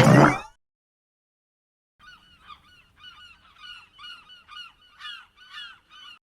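A loud metallic clang fading out at the start. Then, from about two seconds in, geese honking in a rapid series of short calls, two or three a second.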